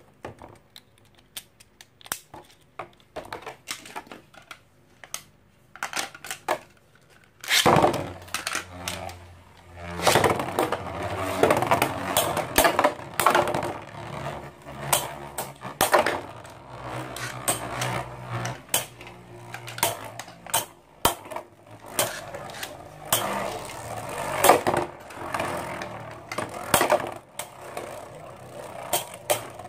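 Two Infinity Nado metal-ringed spinning tops launched together into a clear plastic stadium about eight seconds in, then spinning and grinding across the plastic floor, with repeated sharp clacks as they collide. Before the launch there are scattered small clicks of the tops being fitted to their launchers.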